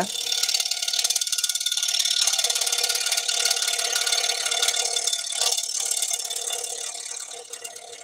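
Scroll saw cutting a thin wooden blank, its blade strokes making a fast, even chatter over the machine's steady running tone. It gets quieter near the end.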